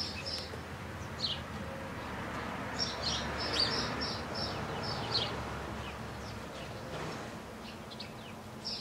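Small songbirds chirping in quick runs of short, high, falling notes, over steady outdoor background noise that swells in the middle.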